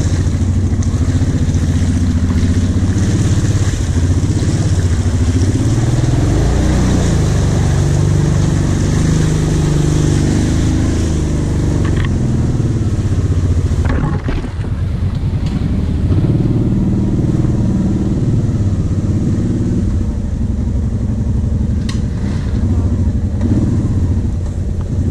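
Kawasaki Brute Force 750 quad's V-twin engine running under the rider, its note rising and falling with the throttle as it is driven over a muddy, rutted trail, briefly dropping off about halfway through.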